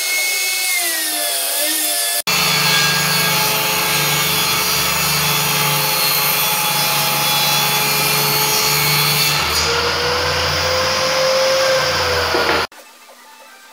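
Table saw running and ripping strips of wood, its whine shifting in pitch as the boards are fed through the blade. It cuts off abruptly near the end, leaving a quieter background with a few light clicks.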